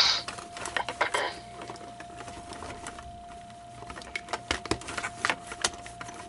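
Light clicks and knocks of hard plastic animatronic parts being handled and fitted together during reassembly of the head mechanism, irregular and scattered, over a faint steady high tone.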